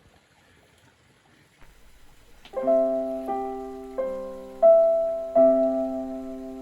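Background piano music: after a quiet start, sustained piano chords begin about two and a half seconds in and are struck roughly every second, each ringing and fading.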